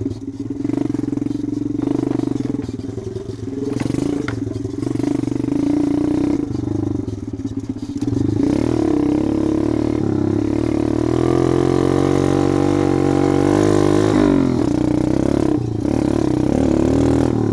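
Kayo pit bike's single-cylinder four-stroke engine running under way, exhaust through what the rider takes for a straight-through muffler. It gets louder about halfway through, and the revs climb for a few seconds before dropping back.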